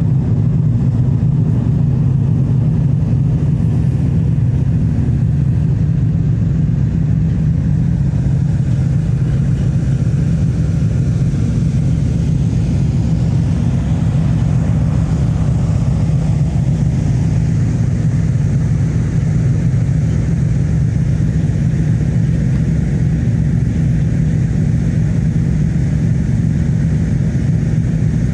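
Steady low engine drone of a vehicle running at constant speed, unchanging throughout, with a noise haze above it.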